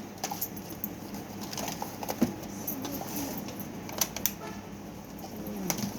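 Scattered light clicks and taps of small parts or tools being handled while an electric fan is worked on.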